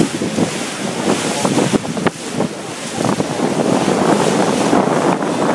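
Wind buffeting the microphone on the deck of a moving cruise boat, over the rush of water past the boat.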